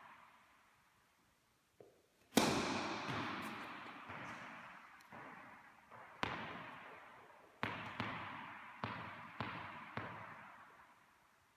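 Tennis ball impacts ringing with a long echo in a large indoor tennis hall: a loud strike about two seconds in and another around six seconds, then a run of five ball bounces on the hard court, a little under two a second, as the ball is bounced before a serve.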